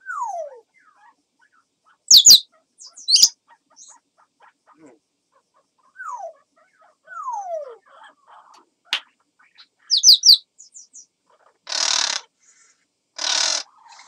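African grey parrot mimicking crow sounds. It gives several falling whistles and a few very sharp, loud high clicks, then two harsh rasping calls a little over a second apart near the end.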